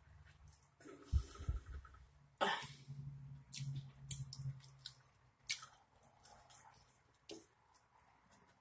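Close-up eating sounds: a mouthful of grilled steak being chewed, with a short cough about two and a half seconds in and a few light clicks and mouth noises.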